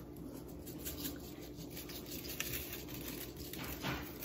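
Dry barbecue rub shaken from a shaker jar onto raw chicken skin: faint, irregular rattling and pattering of the granules.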